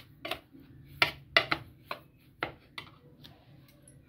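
Metal spoon knocking and scraping against a square white dish while stirring dry semolina and wheat flour together: a string of irregular sharp clicks that thins out near the end.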